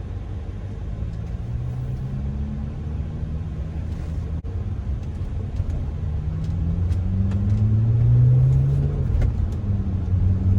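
Engine of a BMW 335i, a twin-turbo straight-six, pulling under acceleration in the car's cabin. Its pitch climbs, then falls back near the end as the manual gearbox is shifted up, with a brief break about four seconds in.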